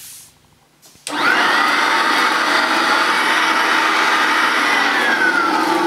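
Hoover Dustette S1122 handheld mains vacuum cleaner, a 150-watt dirty-fan design, switched on about a second in: its motor whine rises quickly to a steady pitch and runs loud. Near the end it is switched off and the whine falls steadily as the motor runs down.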